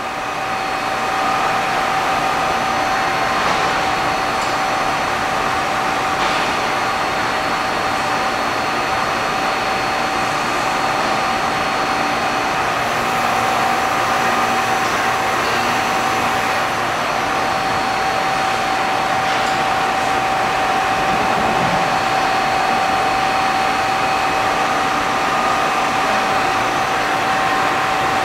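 Omniturn GT-75 CNC turning center running with its control in automatic cycle: a steady whirring hiss with a constant mid-pitched whine.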